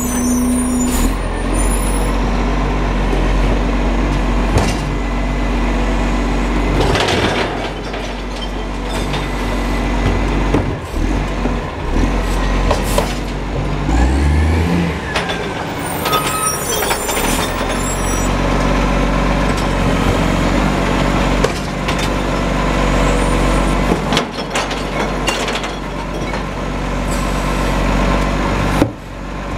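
Iveco Acco side-loader garbage truck's diesel engine running as it creeps up and stops at the kerb, with several short air-brake hisses and clunks. Near the end its hydraulic arm lifts a wheelie bin.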